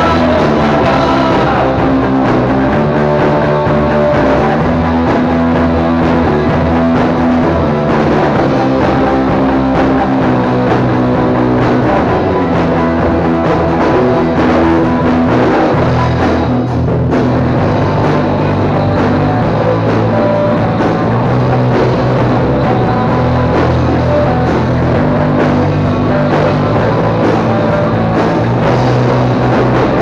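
Rock music: electric guitar playing over a drum kit, loud and continuous.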